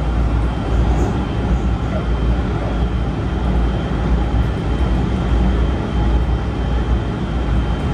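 Keikyu 1000 series electric train (Toshiba IGBT-VVVF set 1409) running at a steady speed, heard from inside the passenger car: a loud, steady rumble of the wheels on the rails with a faint steady high tone above it.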